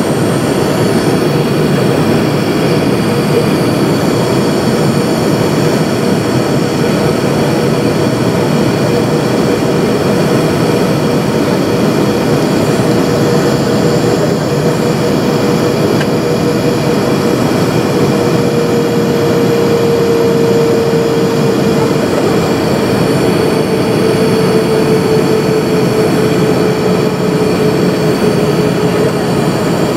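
Steady jet engine and airflow noise inside an Airbus A320 cabin in flight. A steady hum in the engine noise grows stronger and drops slightly in pitch from about two-thirds of the way through.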